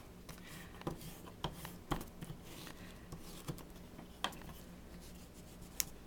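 Wax crayon rubbed on its side across copier paper over a leaf to make a leaf rubbing: faint, uneven scratching with a few soft ticks.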